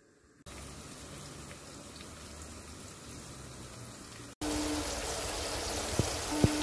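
Pot of chopped tomatoes, onions and mutton cooking over a stove flame, with a steady sizzling, bubbling hiss. It gets louder about four seconds in, when a steady hum joins, and two sharp clicks come near the end.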